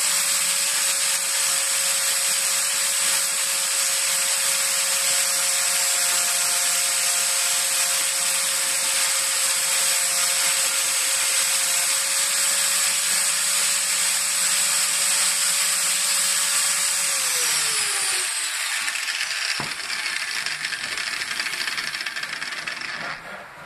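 Angle grinder with a sanding disc running at a steady whine while it grinds the edge of a dull wood chisel, throwing sparks. About 17 seconds in it is switched off and the whine falls as the disc spins down, followed by a sharp click and light rubbing.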